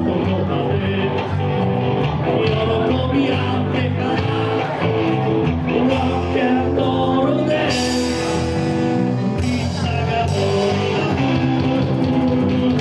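Live band playing an upbeat rock song with a singer.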